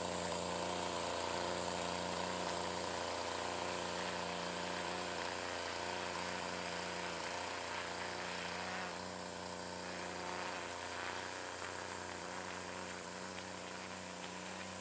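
Gas weedwacker (string trimmer) engine running steadily, its level gradually falling over the second half as it gets farther away.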